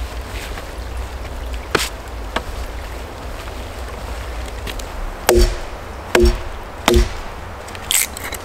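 Wood being chopped: three sharp knocks a little under a second apart, each with a short ring, over a steady low rumble of wind on the microphone.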